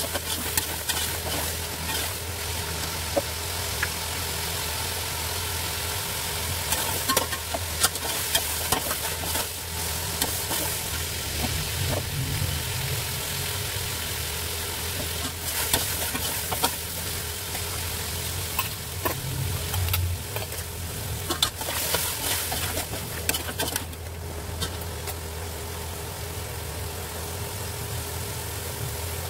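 Beef frying and sizzling in oil in an aluminium pot, stirred with a metal slotted spoon that scrapes and clicks against the pot again and again. A steady low hum runs underneath.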